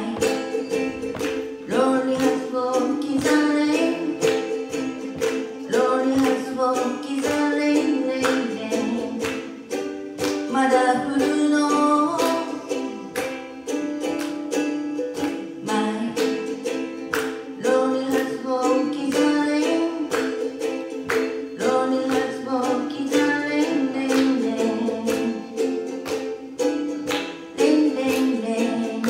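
A ukulele strummed in a steady rhythm while a woman sings a pop song.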